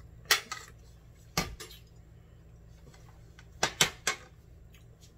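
Fork clinking against a plate: several short, sharp clinks in three quick clusters, just after the start, about a second and a half in, and near the end.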